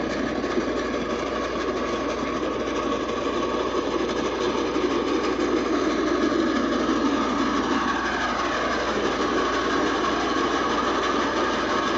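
Chesapeake and Ohio J3a 4-8-4 steam locomotive No. 614 and its passenger train running, a steady mechanical rumble and hiss.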